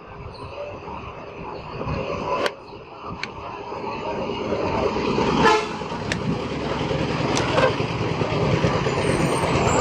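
Road traffic with vehicle horns, growing louder. Over it come several sharp clicks as a metal pry tool works open the plastic housing of a Walton MH16 mobile phone.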